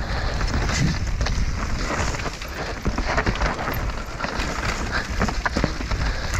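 Mountain bike descending a dirt singletrack, heard from an action camera on the bike or rider: a steady rumble of wind buffeting the microphone and tyres rolling over dirt and leaves, broken by frequent sharp knocks and rattles as the bike hits roots and bumps.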